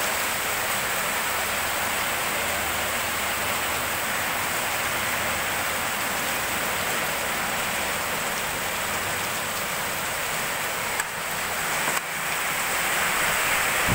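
Heavy rain pouring steadily onto a street and pavement, a dense, even wash of noise.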